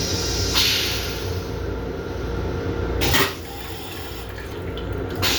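Steady low rumble and hum inside an M7 electric railcar, broken by three short bursts of hiss: about half a second in, about three seconds in, and near the end.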